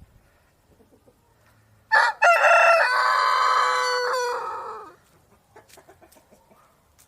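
A rooster crows once, starting about two seconds in: a few short choppy opening notes run into one long held call that fades out after about three seconds. A few faint clicks follow.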